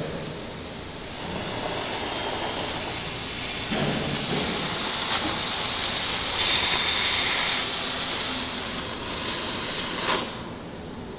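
Oxy-fuel cutting torch hissing steadily as it burns through steel plate. The hiss turns louder and sharper for about a second past the middle, with short swells a little before and near the end.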